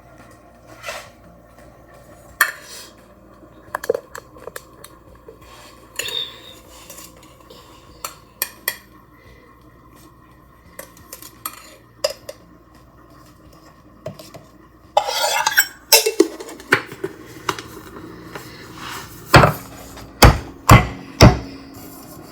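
Kitchen clatter of dishes, pots and utensils being handled: scattered light clinks and knocks, a brief scraping rustle past the middle, then four loud knocks in quick succession near the end.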